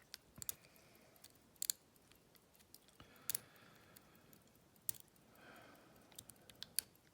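Lock pick working the pin stack of a Scandinavian oval lock cylinder under tension: scattered sharp clicks and faint scraping of the pick against the pins.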